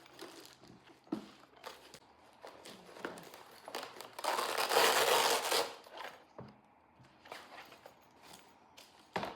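Rustling and crinkling from handling a fireproof document case, with a louder stretch of crinkling about four seconds in lasting under two seconds, scattered small taps and clicks, and a sharper knock near the end.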